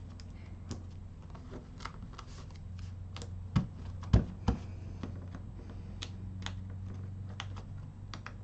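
Hands handling die-cut cardstock pieces and craft tools on a craft mat: scattered light clicks and taps, with three louder knocks about three and a half to four and a half seconds in, over a steady low hum.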